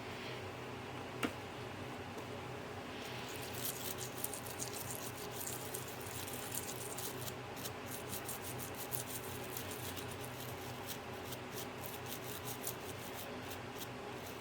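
Small, rapid scratching and ticking of hand work on a small electronic device, starting about three seconds in and continuing irregularly, over a steady low hum.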